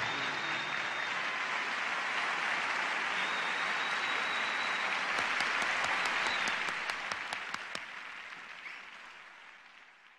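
Audience applause, an even wash of many hands clapping, with a few sharp close hand claps standing out about five to eight seconds in. The applause then fades away over the last few seconds.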